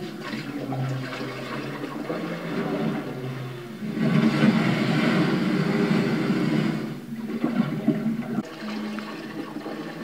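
Rushing, flushing water noise that surges about four seconds in and eases off around seven seconds.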